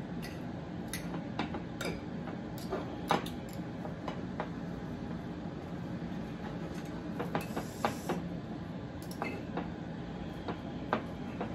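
Forks clicking and scraping against a plate while cooked chicken breast is pulled apart and shredded: light, irregular clicks, a few a second at most, over a low steady hum.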